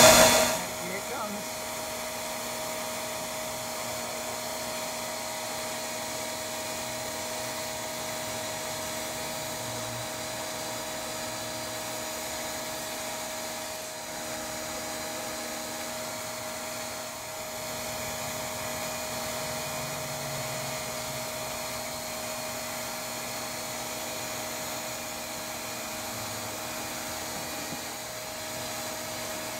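Bee vacuum running steadily: a vacuum motor's even whooshing hum, with a constant whine.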